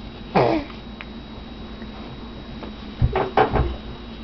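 Baby's short vocal sounds while being spoon-fed: a brief squeal that falls in pitch near the start, then a couple of low thumps and another short vocal sound about three seconds in.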